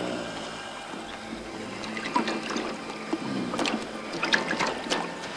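Sea waves washing and lapping as a cartoon sound effect, with a few short sharp sounds over it.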